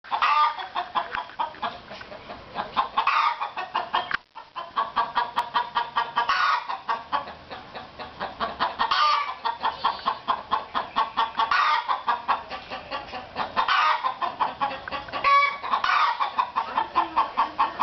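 A black hen cackling: a fast, steady run of short clucks broken every two to three seconds by a louder, drawn-out squawk.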